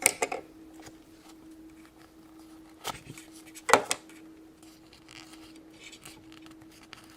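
Small plastic doll and clip-on plastic clothing pieces being handled, giving a few light clicks and taps, the loudest about three and a half seconds in. A faint steady hum runs underneath.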